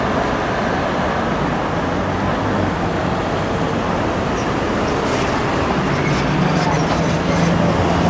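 City street traffic noise, a steady wash of passing cars. About six seconds in, the low steady hum of a nearby bus engine comes up.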